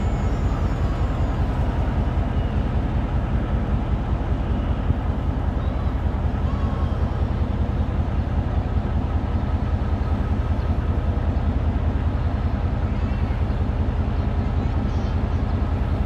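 GM G22 diesel-electric locomotive's engine running steadily at low power as it shunts slowly away, a low even drone.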